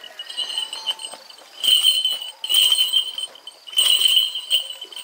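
Crickets chirping in a steady high trill, swelling louder in three bouts around the middle.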